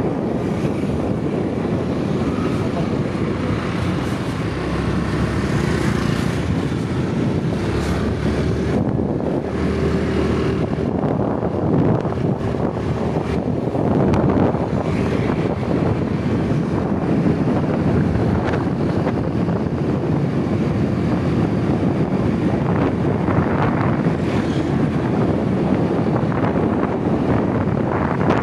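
Wind buffeting the microphone over the steady running of a motorbike riding along at road speed.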